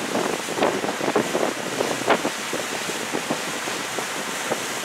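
A motorboat with twin outboards running at speed: a steady rush of churning, splashing wake water, with wind on the microphone.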